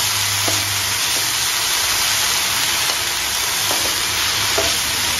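Chopped spinach and corn sizzling steadily in butter in a nonstick frying pan, tossed and stirred with wooden spatulas, with a few light scrapes against the pan.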